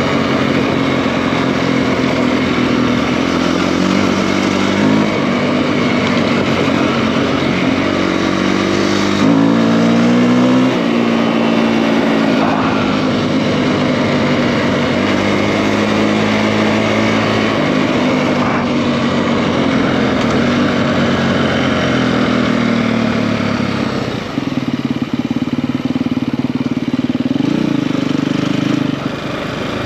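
Single-cylinder four-stroke engine of a KTM EXC-F enduro bike, bored out to 280 cc, under way. The revs climb and fall in steps through the gear changes, with a short sharp rise about nine seconds in. The throttle eases off about three-quarters of the way through, then there is a brief rev near the end.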